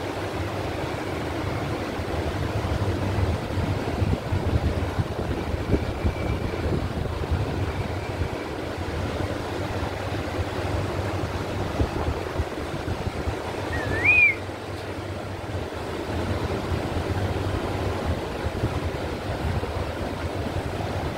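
Steady low rumbling background noise, with one short high-pitched call that rises and falls about fourteen seconds in.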